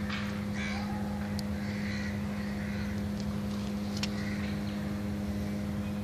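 Crows cawing several times over a steady low hum.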